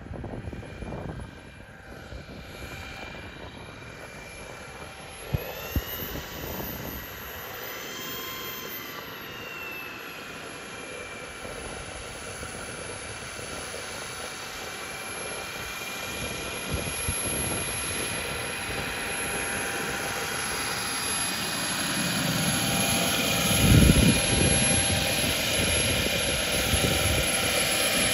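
Radio-controlled scale turboprop trainer model rolling out after landing and taxiing in, its motor and propeller whining steadily, the pitch rising and falling briefly a few seconds in, and growing louder as it comes closer. A brief low rumble near the end is the loudest moment.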